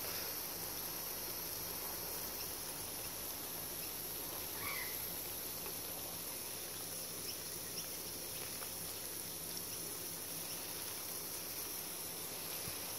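Steady hiss of garden water spray falling, with a constant high-pitched edge to it.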